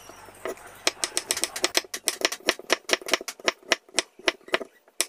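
Kitchen knife slicing garlic cloves on a wooden cutting board: a quick run of sharp taps as the blade hits the board, sparse at first, then about five a second from the second second on.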